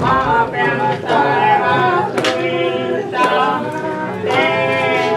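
Singing voices holding long notes, phrase after phrase with short breaks between.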